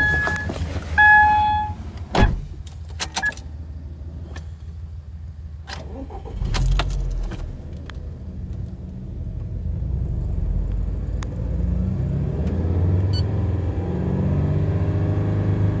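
Subaru Impreza Sport 2.0i's flat-four boxer engine idling in park, then free-revved several times from about ten seconds in, the pitch rising and falling with each blip to around 2,700 rpm. Early on a car's two-note warning chime sounds and a door shuts with a thud about two seconds in.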